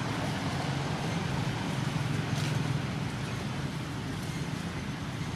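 Steady low hum of motor traffic under a constant background hiss.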